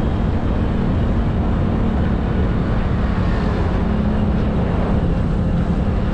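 Motorcycle riding at steady cruising speed: a constant engine hum under a heavy rush of wind over the microphone.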